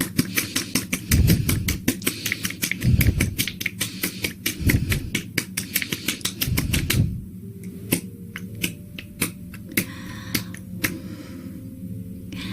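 Close-miked wet, sticky clicking and crackling, many clicks a second for about seven seconds with soft low swells every second and a half or so, then thinning to scattered clicks. A soft breath comes about ten seconds in.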